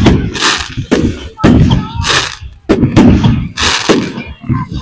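Fireworks display: aerial shells bursting in a rapid run of loud bangs, about one a second, each trailing off before the next.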